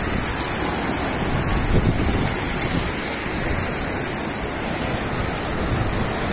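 Surf breaking over a rocky shelf and washing around the hull of a grounded sailboat, a steady rushing of water, with wind rumbling on the microphone.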